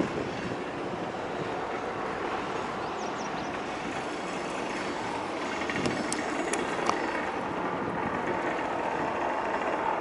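Freight train with diesel locomotives rolling across a steel bridge: a steady rumble of engines and rail cars, with a few short sharp metallic clicks about six to seven seconds in.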